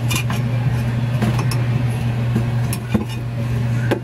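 Steady low machine hum with scattered light metallic clicks and knocks as parts are handled inside a vending machine's refrigerated cabinet.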